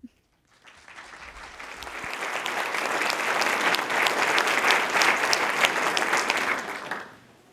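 Audience applauding: the clapping starts about half a second in, builds over a few seconds and dies away near the end.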